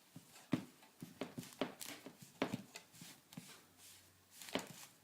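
Hands pressing and patting stiff cookie dough into a metal baking pan: irregular soft taps and knocks, about a dozen, with the pan knocking now and then.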